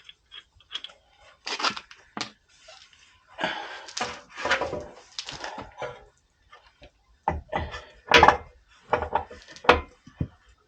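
Irregular metal knocks, clunks and scrapes as a replacement CV axle is worked and pushed into place on a Range Rover L322, with a sharp louder knock a little past the middle.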